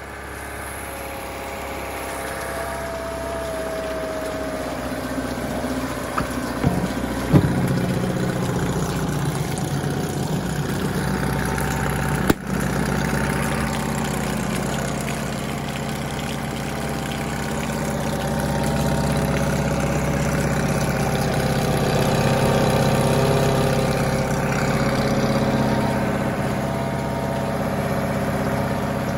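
Volvo Penta B75 (Honda-built 7.5 hp two-cylinder four-stroke) outboard engine running steadily in a test tank, gradually getting louder over the first twenty seconds or so. A few clicks and knocks come about six to seven seconds in, and one sharp click about twelve seconds in.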